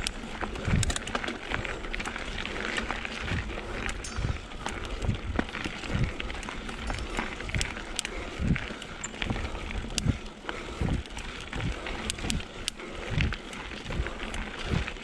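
Giant XTC mountain bike climbing slowly up a steep dirt singletrack: tyres rolling over dirt and the bike rattling, with low knocks roughly once a second and scattered sharp clicks.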